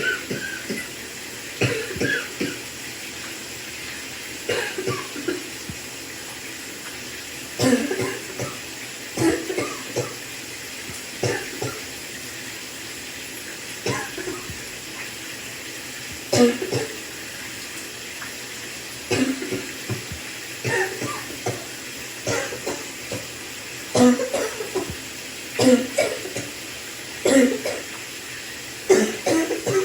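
A person coughing over and over in short fits of one to a few coughs, every one to three seconds, over the steady hiss of a running shower.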